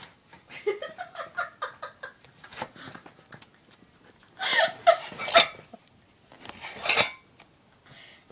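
A person giggling near the start, then sharp knocks and scraping from a cardboard pizza box as a kitten pushes its head into it, with the plates on the lid clinking.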